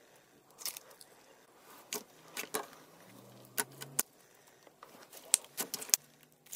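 Clear slime with blue glitter squeezed, pinched and stretched by hand, giving irregular sharp clicking pops and crackles, the loudest near the end.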